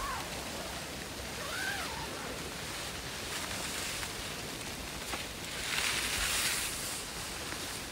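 Steady hiss of rain falling on the tent and the surrounding forest, swelling into a louder rush for about a second and a half near the end.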